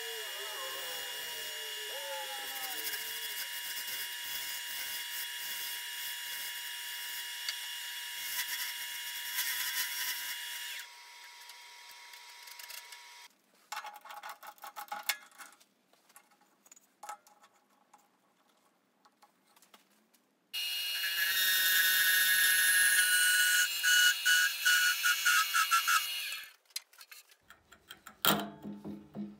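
Wood lathe running while a parting tool cuts into a spinning wood blank, a steady hiss over the motor's hum, for about eleven seconds. Then come scattered clicks and knocks as the chuck is handled, and a second, louder run of the lathe for about six seconds, with a few knocks near the end.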